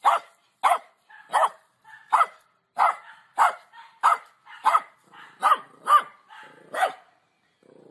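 A small dog barking over and over, about eleven short barks roughly two-thirds of a second apart, stopping near the end.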